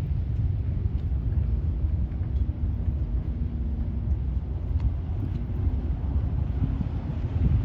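Wind buffeting the microphone outdoors, a heavy uneven low rumble, with a faint steady hum underneath about two to four seconds in.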